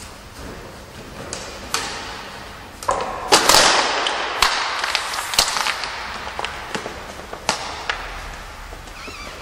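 Sharp knocks and clanks of weightlifting equipment echoing in a large gym hall, with a loud crash about three and a half seconds in that rings on for a second or two.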